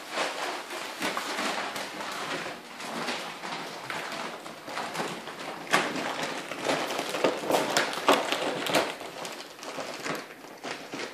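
Puppies rustling and crinkling an empty kibble sack as they pull and nose at it, with sharp crackles that are loudest about halfway through.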